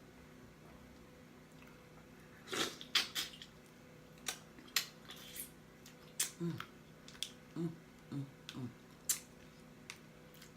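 Close-up wet eating sounds from seafood: irregular sharp lip smacks and chewing clicks, starting about two and a half seconds in, with a few brief low hums in the second half.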